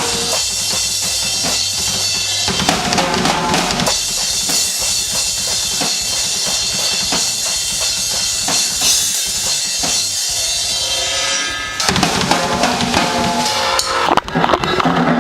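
Music dominated by a drum kit playing a steady beat. About twelve seconds in it changes to a louder, fuller sound.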